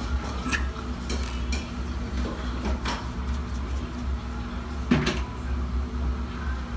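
Kitchen clatter: scattered clinks and knocks of dishes, utensils and a cupboard, the loudest about five seconds in, over a low steady hum.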